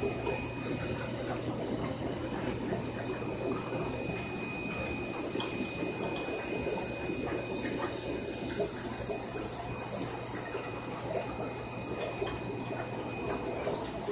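Aquarium filtration and aeration running: steady bubbling, trickling water over a constant low hum from the pumps, with a faint steady high whine.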